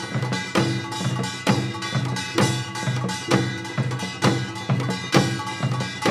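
Korean traditional dance music played on drums and percussion. It has a strong beat about once a second with lighter strokes between, over a repeating low pitched figure.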